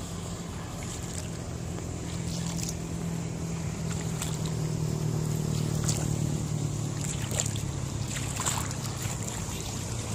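Small engine running steadily, its hum rising slightly in pitch about midway and then settling back.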